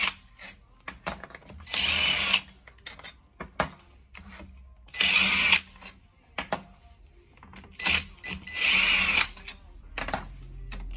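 Cordless ratchet spinning out the cover bolts of an ATV's rear gear case, in three short runs of about half a second to a second each, with small clinks of handling between them.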